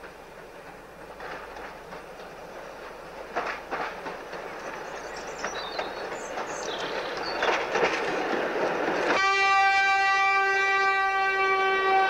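Gravity slate train of narrow-gauge slate wagons rolling down the line without a locomotive, a rumble with clicks and clacks of wheels over rail joints that grows louder as the wagons come past. About nine seconds in, a horn sounds one long steady note lasting about three seconds.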